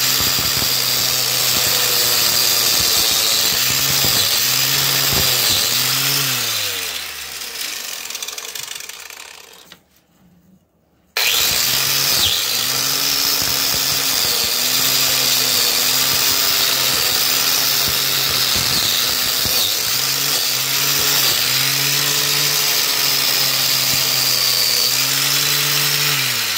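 Harbor Freight angle grinder with a wire wheel running against a rusty axe head, stripping the rust; its hum dips in pitch again and again as the wheel bites into the steel. About six seconds in it is switched off and winds down to silence, then it is started again a few seconds later and runs on under load.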